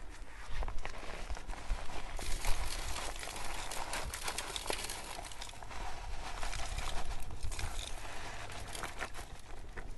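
Industrial salt poured from a sack into a lightning-arrestor earth pit, the grains pattering steadily onto a bed of charcoal as a continuous hiss of many small ticks.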